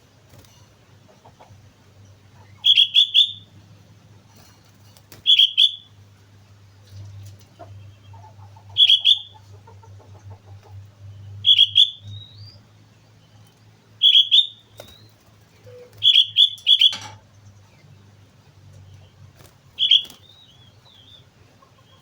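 Sooty-headed bulbul (kutilang) singing: loud short bursts of quick whistled notes, about seven phrases a few seconds apart.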